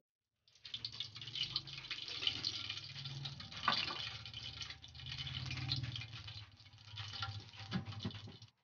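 Cooking oil heating in a wok, giving faint, irregular crackling with a low hum underneath.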